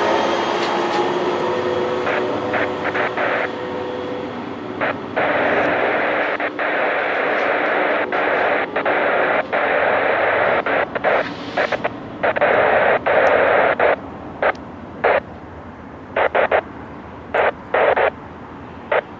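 A departing train's rumble fades away over the first few seconds. It gives way to loud bursts of radio static that switch on and off abruptly, in long stretches at first and then in short blips near the end.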